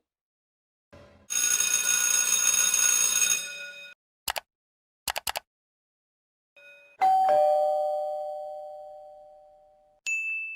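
A string of separate sound effects. First comes a steady ringing tone for about two seconds, then a few sharp clicks. Then a two-note chime, high then lower, rings out and fades over about three seconds, and a short high beep comes near the end.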